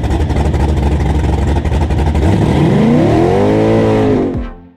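Race car engine running with a rapid pulsing beat, revving up once about two and a half seconds in and dropping back, then cutting off suddenly near the end.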